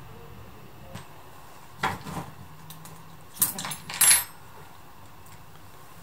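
Metal tools and engine parts clinking and clattering while a Bajaj motorcycle engine's cylinder head is taken apart. There are a couple of sharp clinks about two seconds in, then a louder cluster of clinks around three and a half to four seconds.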